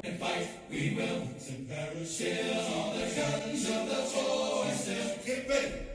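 Choral music: a choir singing a slow, chant-like melody.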